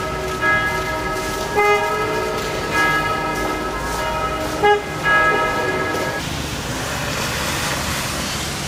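Tram wheels squealing on the rails as a tram passes: several high, steady squeal tones that break off and change pitch every second or so, with a sharp click about four and a half seconds in. The squeal stops about six seconds in, giving way to the steady rumble of another tram approaching.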